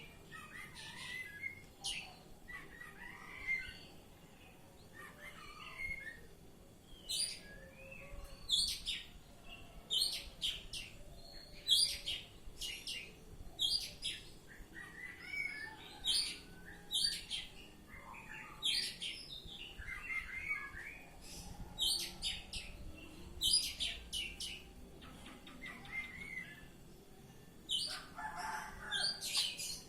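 Oriental magpie-robin (kacer) singing in full, non-stop song: short, sharp whistled notes alternating with lower warbled phrases, a new phrase about every second.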